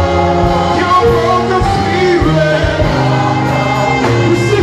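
Live gospel music: a man singing lead through a handheld microphone over instrumental backing, with held bass notes that change every second or so.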